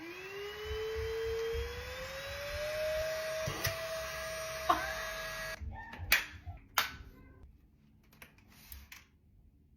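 Moolan V1 Pro cordless stick vacuum's motor switched on, spinning up with a rising whine, then running steadily with a rushing hiss before it shuts off about five and a half seconds in. A couple of sharp plastic clicks follow.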